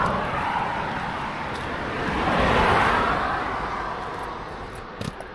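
Road traffic going past: tyre and engine noise that swells to a peak about two and a half seconds in and then fades away.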